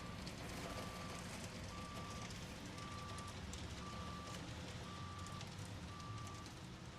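Reversing alarm beeping evenly, about one short flat beep a second, over steady traffic rumble and street noise.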